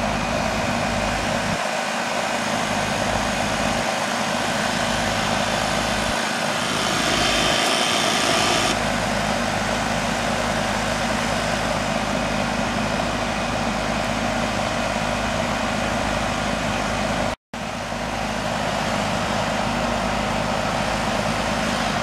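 Goodman central air-conditioning condenser running steadily, its outdoor fan and compressor humming while the system is charged with R-22 vapour to bring the subcooling up. A brighter hiss rises for a couple of seconds about seven seconds in, and the sound cuts out for a split second about seventeen seconds in.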